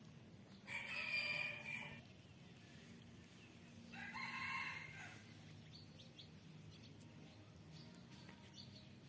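Rooster crowing twice, about three seconds apart, the second crow shorter than the first.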